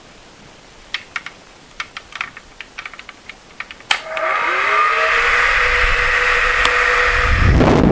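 A few light clicks, then about four seconds in a switch clicks and a small electric appliance motor starts. Its whine rises in pitch as it spins up, then it runs steadily under a loud rushing of air, with a low rumble growing near the end.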